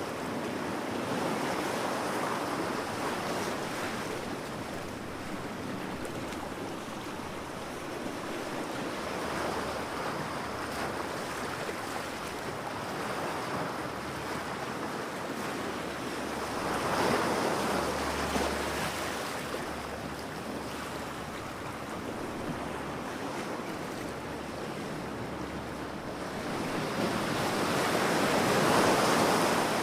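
Ocean waves washing onto a beach: a continuous surf hiss that swells into louder breaking waves a little past halfway and again near the end.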